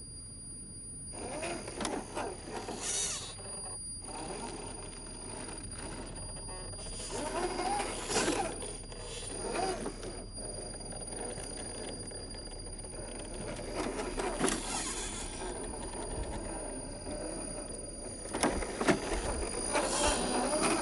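RC crawler's electric motor and gearbox whining in bursts as it drives over rough ground, its tyres scrabbling on dirt and rock, with a few sharp knocks near the end.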